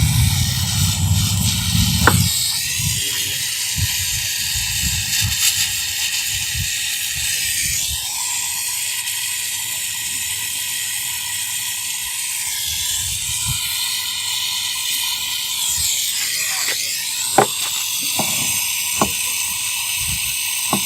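Gas brazing torch flame hissing steadily as a pipe joint on a refrigerator compressor is brazed, with a few sharp ticks.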